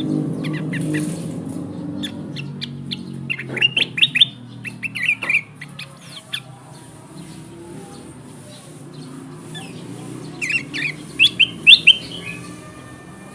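Kutilang emas, a bulbul, calling in two bouts of quick, sharp chirping notes, about four seconds in and again near the end, the second bout the loudest. It is lure song for drawing wild kutilang emas.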